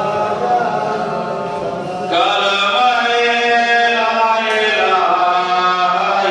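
A man chanting a devotional recitation in long, drawn-out sung notes, growing louder and fuller about two seconds in.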